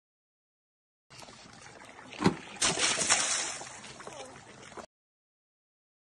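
Water splashing and sloshing as an Asian elephant moves in a pond. There is a sharp splash a little after two seconds in, then a louder rush of splashing that fades. The sound starts about a second in and cuts off abruptly near the end.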